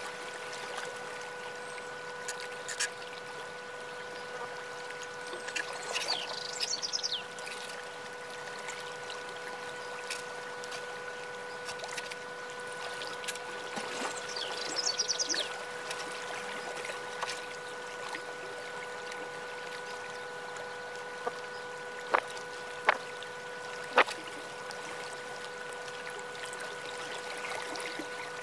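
Light handling and scraping of an unfired clay teapot with small hand tools, with two brief scratchy flurries and three sharp taps in quick succession near the end. Under it runs a steady hum with a hiss.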